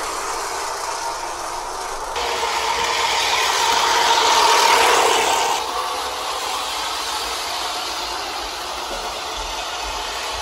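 Sound-equipped Williams O scale P42 model diesel locomotive running on its track: the simulated diesel engine sound from its onboard speaker over the running rumble of its motor and wheels. A louder hissing stretch starts abruptly about two seconds in and cuts off about three and a half seconds later.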